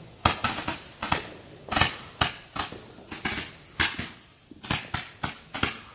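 A 196-shot firework cake firing: a rapid, irregular string of sharp bangs and pops, a few a second, some much louder than others.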